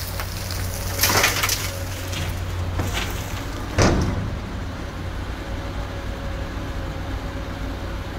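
Komatsu PC200 hydraulic excavator at work: its diesel engine runs steadily under a faint steady whine. A rush of noise comes about a second in, and a sudden louder clatter just before four seconds in is the loudest moment.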